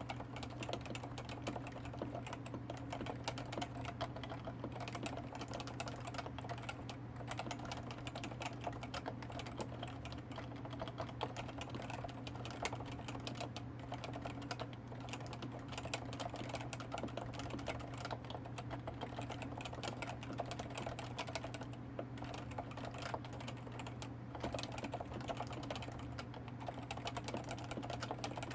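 Continuous typing on a Topre Realforce 104U keyboard with 45 g electrostatic capacitive switches and ABS keycaps: a rapid, steady run of soft keystrokes with no breaks. A steady low hum sits underneath.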